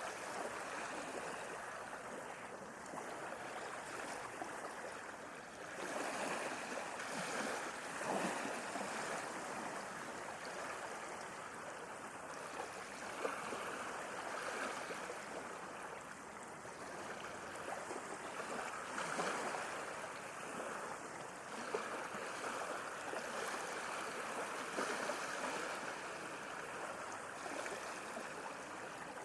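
Sea waves washing against the shore, a continuous rush of water that swells and eases every few seconds, with small splashes.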